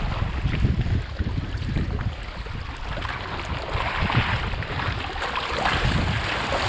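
Wind buffeting the microphone, with waves splashing and washing against a kayak under sail.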